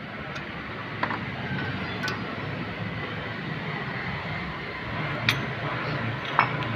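A few light, sharp metal clicks and clinks, scattered about once every second or two, as a wheel-bearing retaining circlip is worked into its groove in the steering knuckle. A steady background noise runs underneath.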